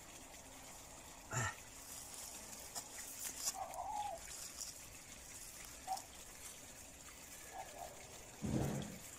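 Soft knocks, scraping and crumbling of dry soil and clods as gloved hands pack earth around a freshly planted seedling. A few faint short calls sound in the background, and a brief louder low sound comes near the end.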